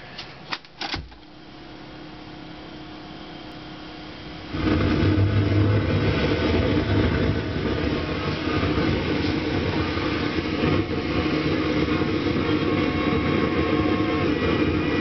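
Several sharp clicks from the controls of a Panasonic RS-806US 8-track deck, then about four and a half seconds in a loud, dense, steady sound comes on and continues.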